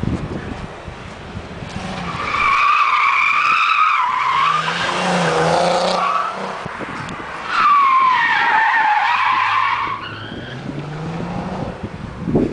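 Volkswagen Golf R32 driven hard through a bend, tyres squealing twice for a couple of seconds each over the note of its 3.2-litre VR6 engine, which climbs in pitch as it accelerates away near the end.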